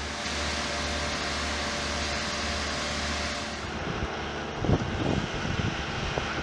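Steady machinery noise as wet concrete pours from a mixer's chute. About four seconds in it changes to a concrete screed machine's engine running, with a few low thumps.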